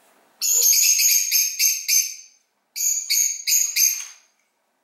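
A small metal bell jingling as it is shaken, in two runs of quick strokes, about five a second, with a short break in between.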